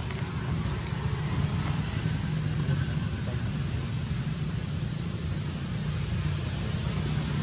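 Steady low mechanical rumble, like an engine running, with a thin, high, evenly pulsing trill above it.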